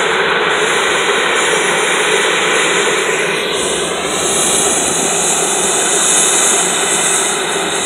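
Sikorsky S-92A helicopter running on the ground with its rotors turning, a loud, steady rush of twin turboshaft turbine whine and rotor noise. From about three seconds in, faint tones gliding in pitch ride on top.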